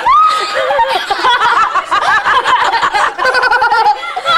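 A group of people laughing and calling out. It opens with a loud, high, held cry that rises and then stays level for about half a second.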